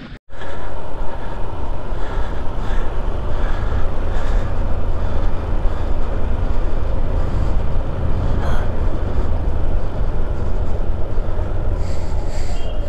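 A 150cc motorcycle being ridden, its engine and the road noise making a steady rumble.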